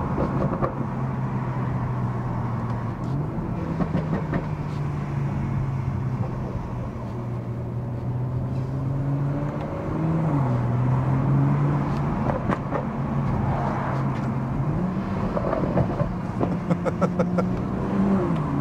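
BMW M240i's B58 turbocharged straight-six with a Scorpion resonator and particulate-filter delete exhaust, heard from inside the cabin at low revs. The engine note rises and falls a few times with light throttle.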